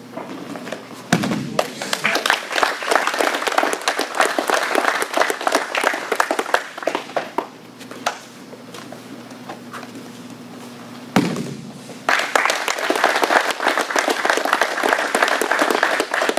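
A small crowd applauding in two rounds, the first starting about a second in and fading around seven seconds, the second starting about twelve seconds in, each opened by a single thump.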